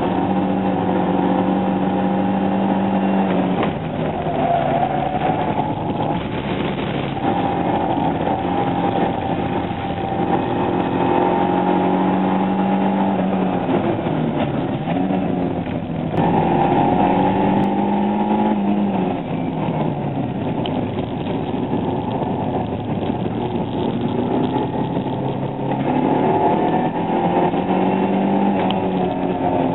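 Fiat Seicento 1.1's small four-cylinder petrol engine heard from inside the cabin under hard driving. The revs climb in pitch, drop and climb again several times.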